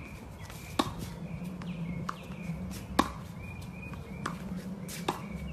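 Tennis ball struck back and forth with rackets in a rally: three sharp hits about two seconds apart, with fainter clicks between.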